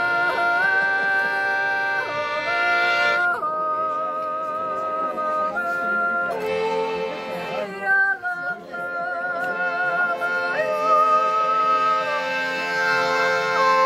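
A woman yodeling, with sustained notes and sudden breaks in pitch between them, to her own accompaniment on a small button accordion.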